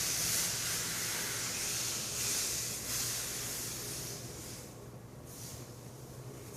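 Steam hissing as a wet rag cools a hot, freshly soldered copper pipe fitting; loud at first, then fading away over about five seconds.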